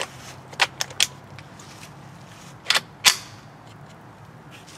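Sharp metallic clicks of a Ruger 10/22 semi-auto .22 rifle being handled and loaded at the bench: three quick clicks within about the first second, then two louder clacks close together about three seconds in.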